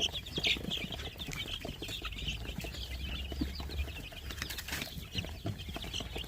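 A brooder flock of 20-day-old Sonali chicks peeping, many short high chirps overlapping without pause, with scattered light clicks and rustles among them.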